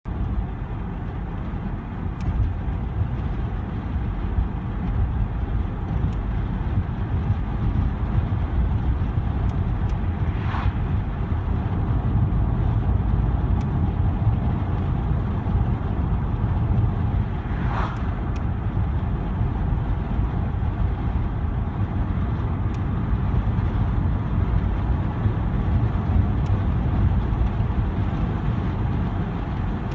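Car interior while driving with a window open: steady low road and wind rumble with tyre noise. Twice, about ten and eighteen seconds in, a brief louder whoosh rises over it, like another vehicle passing.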